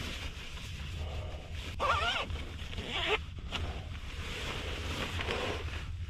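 Rustling and crinkling of a disposable protective coverall and the plastic sheeting on the crawlspace floor as a person rolls over and crawls. Two short pitched sounds come about two and three seconds in.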